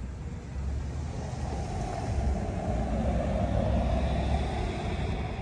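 Rumble of a passing road vehicle, swelling towards the middle and easing off near the end.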